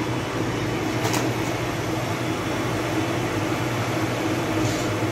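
Steady mechanical hum and rushing noise of bakery machinery running, with a brief click about a second in.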